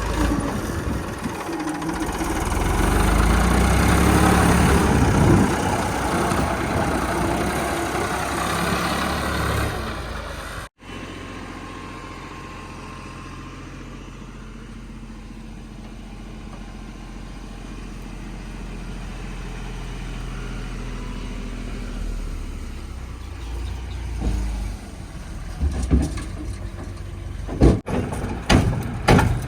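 Diesel engine of a backhoe loader working under load for about the first ten seconds, its revs rising and falling. After a sudden cut it runs steadier and quieter. A few sharp knocks come near the end.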